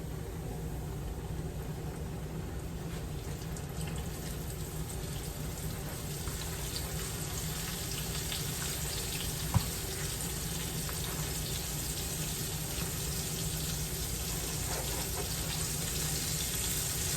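Pork steak frying in grease in a pan, a steady sizzle that grows slightly louder, with one sharp click about halfway through.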